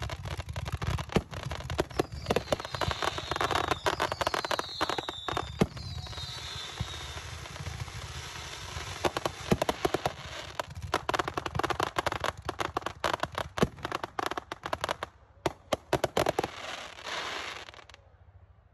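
Fireworks display: ground fountains and cakes going off with dense, irregular crackling and popping, dying away near the end.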